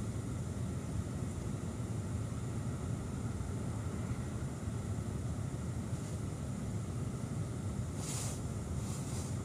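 Car engine idling steadily, a low rumble heard from inside the cabin while the car waits at the drive-thru window, with two brief hisses near the end.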